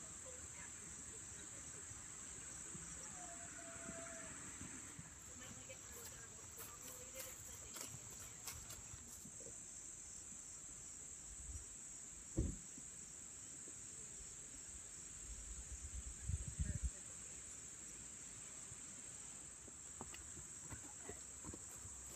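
Crickets chirring as a steady, high-pitched insect chorus, with a few low thumps around the middle.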